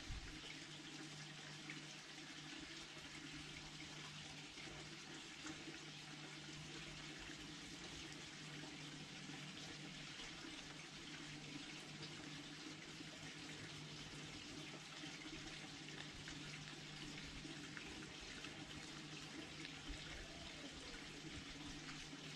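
Faint, steady hiss with a low hum underneath, and scattered small clicks from a red fox chewing food at a garden feeder.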